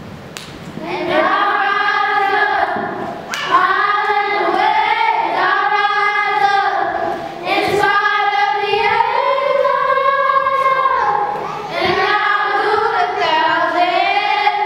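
Girls' voices singing a slow song together, in long held phrases with short breaks between them.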